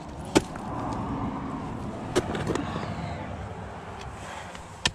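Ice tool picks striking the ice in sharp single hits: one about half a second in, two close together around two seconds, and one near the end, over a rough rustling noise.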